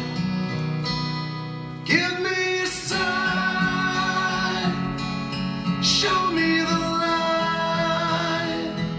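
Music: a song with guitar and a singing voice.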